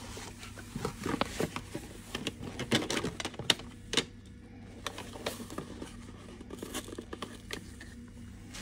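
Cardboard boxes and paper packaging rustling and scraping as they are handled, with small clicks and knocks as a knife is drawn out of its box; busiest in the first four seconds, then sparser.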